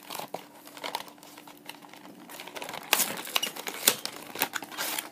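Cardboard and plastic packaging of a Yu-Gi-Oh structure deck being torn and pulled open by hand: irregular crinkling, tearing and clicking, busier in the second half.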